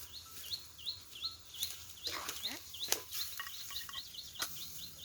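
A bird calling in a rapid series of short rising chirps, coming faster in the second half, with a few sharp knocks among them.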